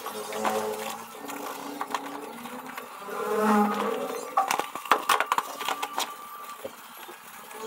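Buckles on Alpinestars motocross boots clicking as they are fastened, with a run of sharp clicks in the second half. A wavering buzz is heard throughout and is loudest about three and a half seconds in.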